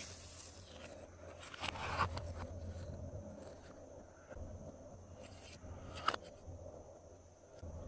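Glossy slime being worked by hand: soft sticky scraping and squishing, with a few small clicks and pops, the sharpest about two seconds in and again near six seconds.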